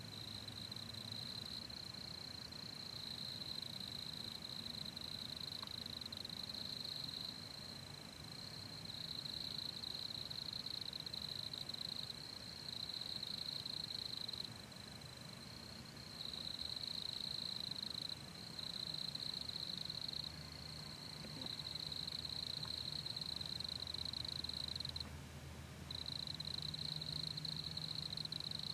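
Evening insect chorus: a high, steady buzz that carries on in stretches of a few seconds, breaking off briefly between them.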